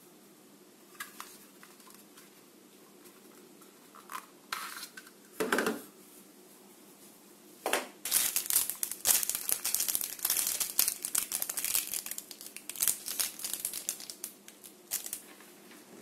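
A short knock about five and a half seconds in as the plastic toy pistol is set down on the table, then a small plastic bag of BB pellets crinkling for about seven seconds as it is handled and opened and the pellets are tipped out.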